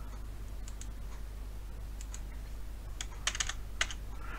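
A few keystrokes on a computer keyboard: scattered single clicks, then a quick run of them about three seconds in, over a steady low hum.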